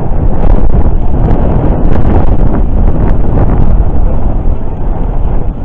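Wind buffeting the microphone: a loud, low, gusting rush.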